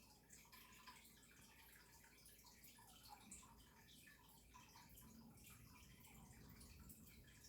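Very faint water dripping and trickling, small irregular drops with no steady rhythm.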